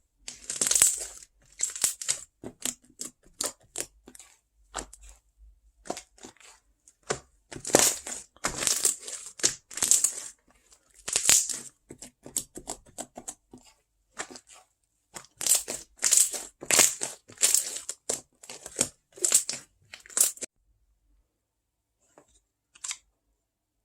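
Close-miked crinkling and tearing sounds: a string of irregular crackling rustles that stops about twenty seconds in, followed by a couple of faint ticks.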